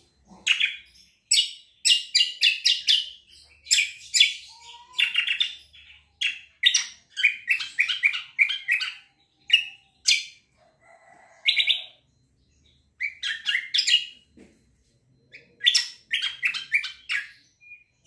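Caged kecial kombo (cucak kombo) songbird singing in rapid runs of sharp, quick chirping notes, phrase after phrase, with a brief pause about two-thirds of the way through.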